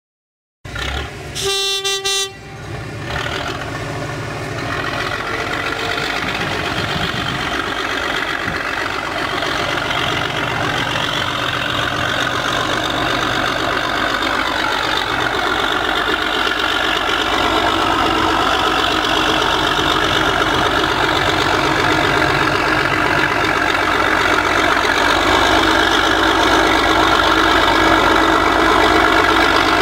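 A diesel shunting locomotive gives a short horn toot, then its engine runs steadily, growing gradually louder.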